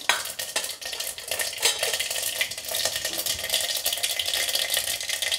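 Mustard and cumin seeds crackling in hot oil in an aluminium pot, a dense, steady patter of small pops: the tempering for rasam, the seeds spluttering as the oil is hot enough.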